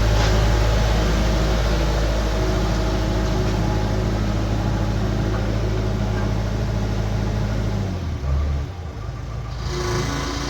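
Skid steer engine running steadily; about eight seconds in the engine note briefly surges and then drops, and a different steady engine note follows.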